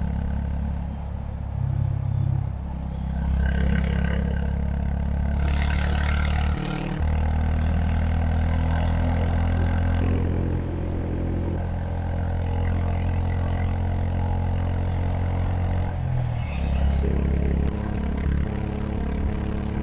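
Honda H'ness CB350's air-cooled single-cylinder four-stroke engine running steadily under way. Its note breaks briefly about seven seconds in and shifts again near the end.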